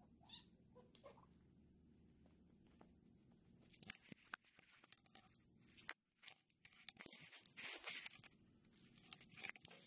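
Kittens' fur and paws rubbing and scratching against the 360° camera and its microphone, giving irregular bursts of close crackling and scraping. The bursts start a few seconds in and run until just before the end, after a few faint short squeaks in the first second.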